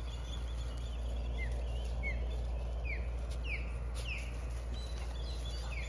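A bird singing: a run of short down-slurred whistles, one or two a second, growing louder through the phrase.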